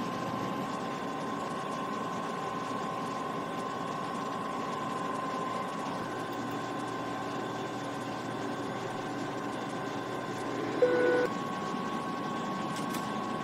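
Steady airliner flight-deck noise: an even hum of air and engines with a constant high whine. A short electronic beep sounds once, about eleven seconds in.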